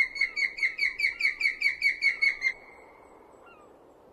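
Osprey calling: a rapid series of high, whistled chirps, about five a second, that stops about two and a half seconds in. A single fainter chirp follows near the end.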